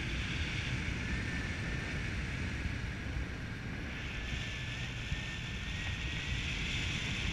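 Wind rushing over the camera microphone of a paraglider in flight: a steady rumble with a hiss above it, and a faint thin whistle wavering slightly in pitch.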